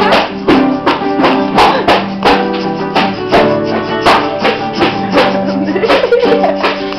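Music with a quick, steady beat of about three sharp hits a second over sustained pitched notes and a plucked-string part.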